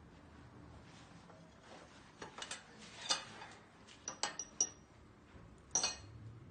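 Fork and spoon clinking and scraping against a plate as a child eats: about six light, separate clinks, a couple of them with a brief high ring.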